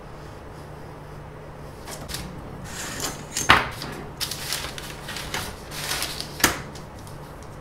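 A large sheet of paper rustling and tools clattering on a wooden workbench as they are handled, with two sharp knocks about three seconds apart, the second as a steel ruler is laid down.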